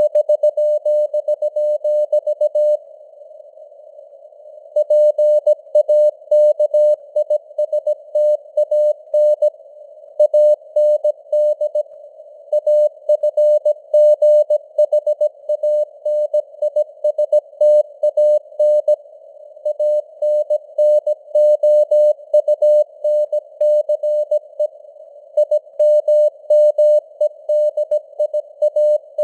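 Morse code (CW) sent at 17 words per minute: a single mid-pitched beep tone keyed on and off in dots and dashes, with short gaps between words and a pause of about two seconds near the start. Beneath it runs a steady hiss of simulated radio noise.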